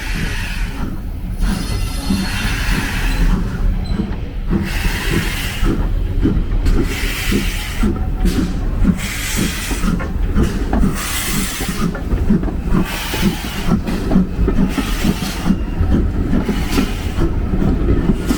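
Train running on the railway, a steady low rumble with a quick rhythmic clatter, overlaid by hissing surges that come and go about every second or so.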